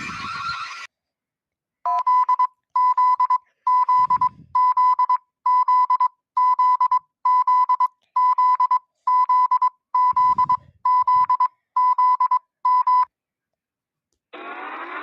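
Electronic alarm signal: a harsh tone near 1 kHz beeping about fourteen times, a little more than once a second, starting about two seconds in and stopping about two seconds before the end. Just before it, a hissing noise cuts off abruptly under a second in.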